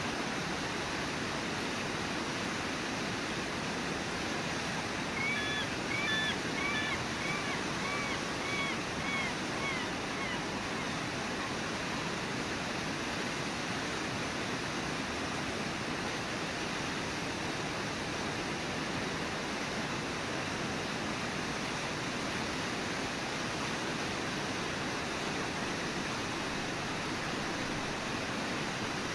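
Brooks Falls rushing steadily, the even roar of the river pouring over the falls. About five seconds in, a run of about eight short, high, arched calls repeats over the water for some five seconds.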